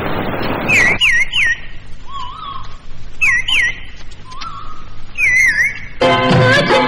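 A few short phrases of whistled notes, each swooping down and back up, with quieter gaps between them. Near the end, music with singing comes in.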